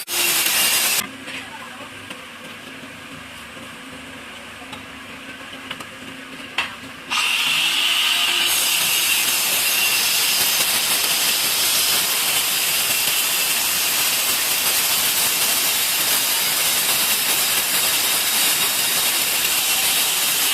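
Electric tile-cutting machine's disc blade grinding through ceramic tile: a loud, steady hissing grind for about a second, a quieter stretch with a low hum and a click, then a long, steady cut from about seven seconds in.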